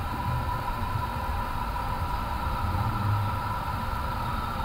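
Airbus A350 cockpit noise during engine start, with one engine running and the other being started: a steady low rumble under two steady whining tones.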